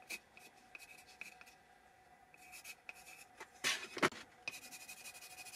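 Pencil writing on a flat piece of bare wood: faint, short scratchy strokes, with two louder scrapes about four seconds in.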